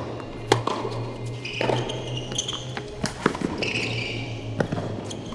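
Tennis rally on an indoor hard court: sharp pops of rackets striking the ball and the ball bouncing, about a second apart, with squeaks of players' shoes on the court between shots.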